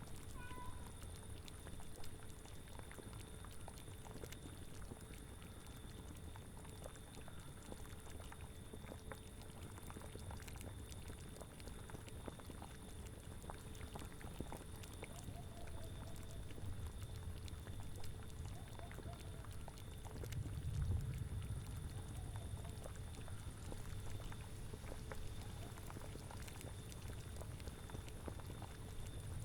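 A cauldron boiling, with a steady stream of small bubbling pops over a low wind rumble that swells about twenty seconds in.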